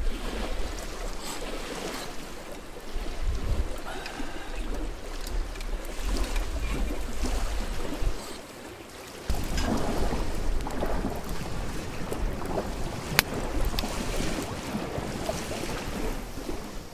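Wind buffeting the microphone: an uneven low rumble over a steady rush of noise that dies down briefly about eight seconds in. A few sharp clicks, one louder one about thirteen seconds in.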